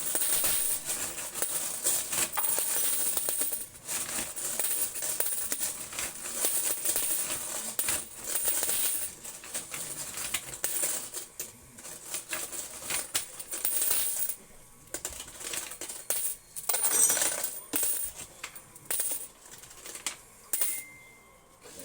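Quarters clattering in a coin pusher machine: a dense, continuous spill of coin clinks for the first dozen seconds or so, then scattered clinks with a loud burst of coins a few seconds before the end.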